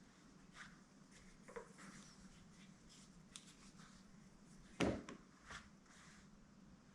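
Quiet room with a few faint clicks and one sharper knock about five seconds in.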